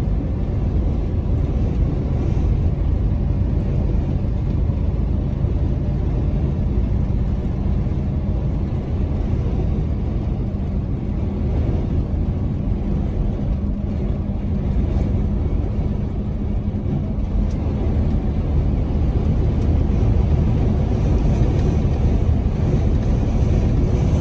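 Truck cab interior at highway cruising speed: a steady low drone of the engine and road noise, with a faint steady hum running underneath and growing a little louder near the end.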